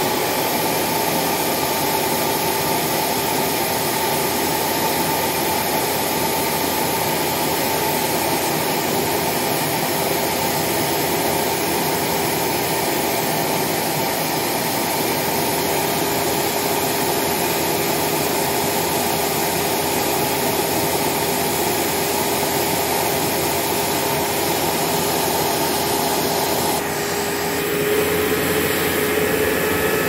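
Hoover Caddy Vac U5117 canister vacuum, a 12-amp motor with a 20-blade fan, running steadily at full power with air flowing freely out of the hose end. About three seconds before the end the sound shifts to a steadier, more tonal note as the hose end is sealed onto a vacuum gauge for a sealed-suction reading.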